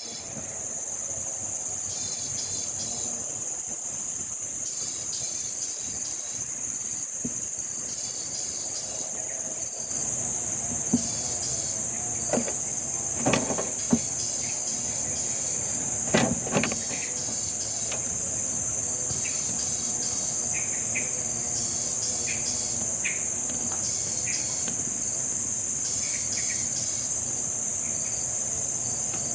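Steady, high-pitched chorus of insects such as crickets, with short chirps repeating every second or two. A handful of sharp knocks and rattles come in the middle.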